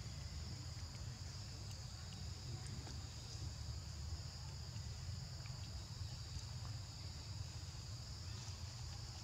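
Steady high-pitched chorus of insects, unbroken throughout, over a low steady rumble.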